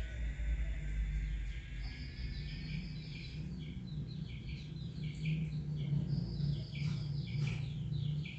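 Small birds chirping in quick repeated notes, over a low steady hum.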